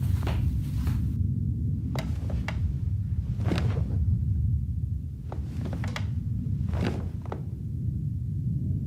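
A series of short knocks and thunks, about eight of them at uneven intervals, over a steady low rumble.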